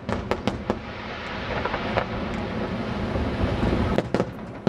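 Aerial fireworks shells bursting: a few sharp bangs at the start, then a steady rumble for about three seconds, then a quick run of bangs near the end.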